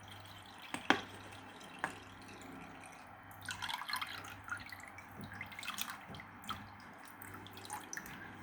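Water dripping and splashing in quick irregular drops, thickest from about three seconds in, with two sharp knocks about a second apart near the start and a low steady hum underneath.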